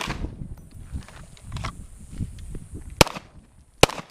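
Three gunshots: one at the very start, then a pause of about three seconds, then two more a little under a second apart.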